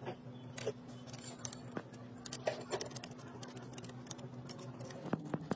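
Scattered light metallic clicks and taps of hand wrenches and a steel bar working the bolts of a heavy spring-loaded metal housing, over a faint steady low hum.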